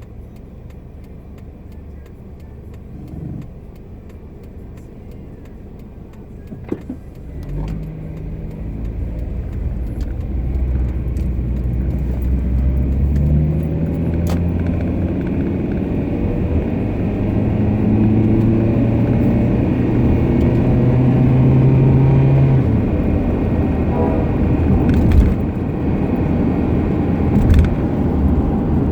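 Passenger car heard from inside the cabin pulling away about seven seconds in and gathering speed, road and drivetrain noise rising, with whining tones that climb in pitch as it speeds up. The owner takes the lower whine for a failing differential and a higher whine for a worn hub bearing. A few brief rattles and knocks are heard along the way.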